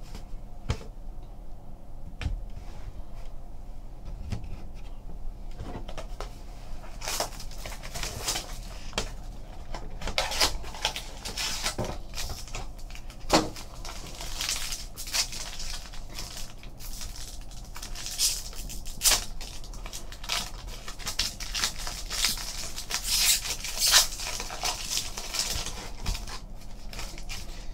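A trading-card pack being opened and its cards handled: irregular crinkling, tearing and rustling of the wrapper with scattered clicks and taps as cards are slid out and set down.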